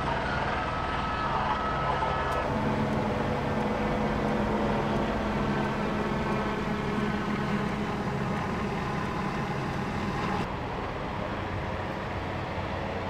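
Steady low hum of motor vehicle engines running, with street noise. The background changes abruptly about two seconds in and again near the end.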